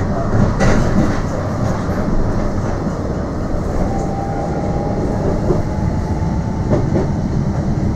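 Electric tram heard from inside the passenger saloon while running along the track: a steady rumble of wheels on rail with a few sharp clicks over the joints and a faint steady whine in the middle.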